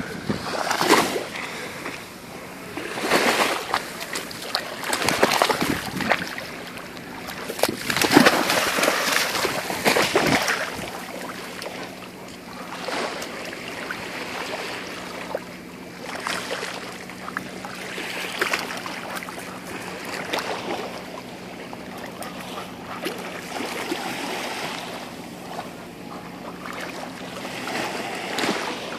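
Shallow sea water splashing and sloshing in irregular bursts as a dog wades and dips its head under, loudest during the first ten seconds and softer after.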